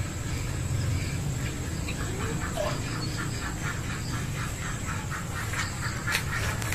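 Two cats in a standoff, growling and yowling at each other in low, pulsing calls. A short, sudden loud burst comes at the very end.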